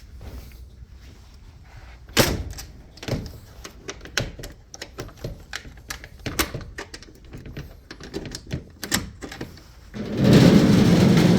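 A run of irregular sharp clicks and knocks. About ten seconds in, a loud rushing noise sets in.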